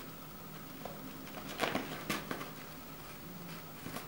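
Tissue paper rustling in a few short bursts as a cat tugs tissues out of a cardboard tissue box, the loudest about one and a half to two seconds in, over a low steady hum.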